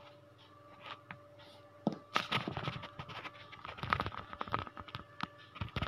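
Handling noise on a phone's microphone as the phone is moved and passed: a burst of rubbing, scraping and clicking knocks beginning about two seconds in, over a faint steady hum.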